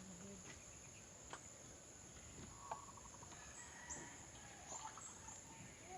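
Quiet outdoor ambience: a steady high-pitched insect drone, with a few faint bird chirps and soft clicks, and a short rapid run of ticks about halfway through.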